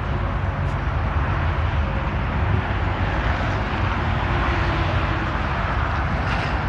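A steady low rumble and hum with an even hiss over it, with no distinct knocks or changes.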